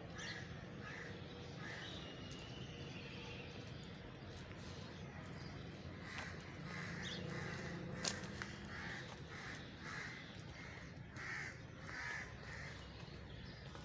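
A series of short, harsh animal calls, a few at first and then about two a second through the second half, over a steady low background hum. A single sharp click comes a little past the middle.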